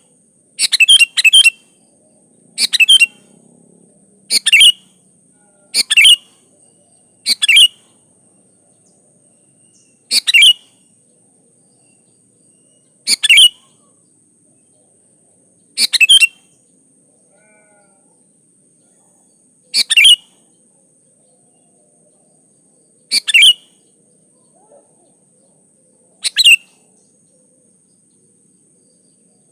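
Sooty-headed bulbul (kutilang) calling in short, loud bursts of a few quick notes. The bursts come about every second or two at first, then every three to four seconds.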